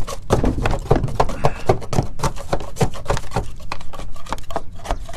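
Footsteps on metal roof panels: a quick, irregular run of hard knocks and clatter.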